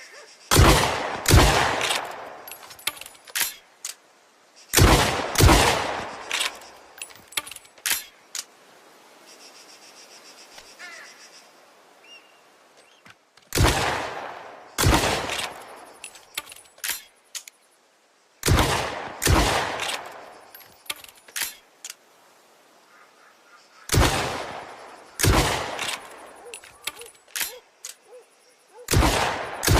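Sawed-off double-barrel shotgun (lupara) firing loud shots in pairs, the two shots of each pair about half a second to a second apart, each ringing off in a short echo. Six pairs, with faint clicks in the gaps between them.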